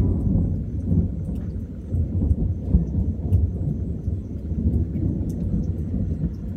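Rolling thunder: a long, low rumble that swells and fades several times, strongest at the start.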